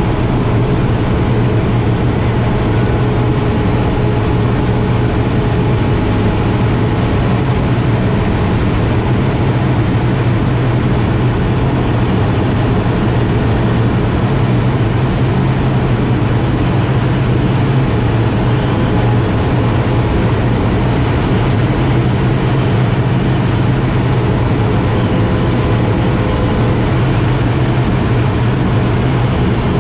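Air Tractor 802's turboprop engine and propeller running steadily in flight, heard inside the cockpit as a loud, even drone with a strong low hum.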